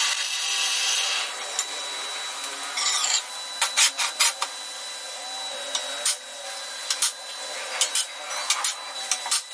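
Workshop tool noise during metalwork: a steady rasping tool sound for about the first second, then a run of sharp clicks and knocks from parts being worked and handled.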